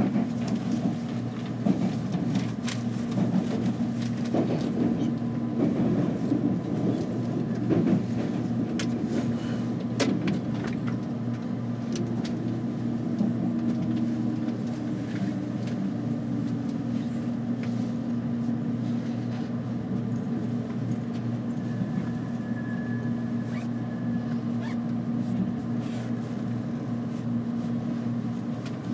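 Steady hum of a JR Kyushu 787-series electric express train standing at the platform with its doors open, its onboard equipment running. A few faint clicks and knocks sound early on, and a faint high tone comes in briefly near the end.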